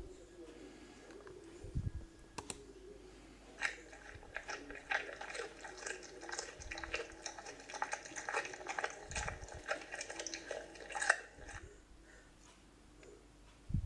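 Cat crunching dry kibble: a quick, irregular run of crisp crunches that starts about four seconds in and stops a couple of seconds before the end.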